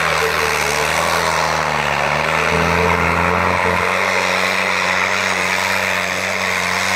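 New Holland 3630 tractor's diesel engine running hard under heavy load while pulling a disc harrow, a steady loud drone whose pitch shifts a little about halfway through.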